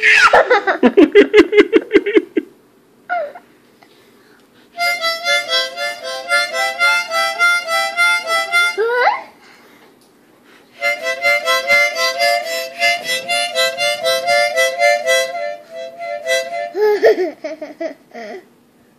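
Harmonica played in bursts: a loud warbling note at first, then two runs of quickly alternating chords, with short pauses between them.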